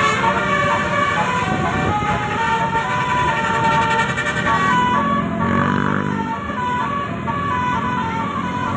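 Basuri 'telolet' musical horns playing a tune in short stepped notes, with a lower-pitched tone joining about five seconds in.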